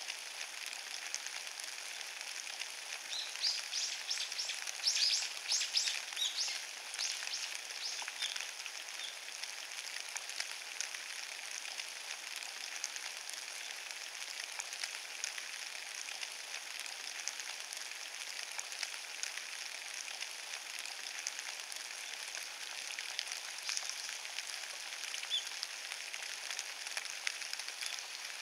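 Rain falling on fallen leaves: a steady patter of many small drops, with a flurry of louder ticks a few seconds in.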